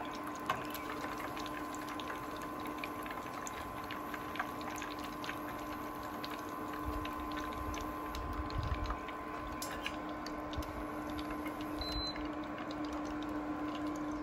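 Battered sage leaves deep-frying in hot oil: a steady sizzle full of small crackles and pops, over a steady electric hum.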